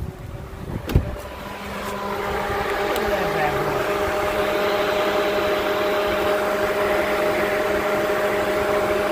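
Jeep Grand Cherokee WJ's electric radiator cooling fan, turned on by a manual override switch, spinning up over a couple of seconds and then running steadily with a rush of air and a steady hum. A single thump about a second in.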